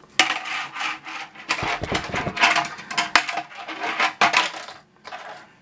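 Tech Deck fingerboard clacking and scraping on a plastic ramp set: a run of sharp clicks and knocks with rolling scrapes in between, quieter near the end.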